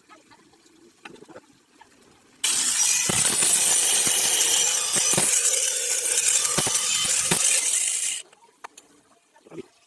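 A power tool runs loudly for about six seconds, starting and stopping abruptly, with a few knocks as it works the material.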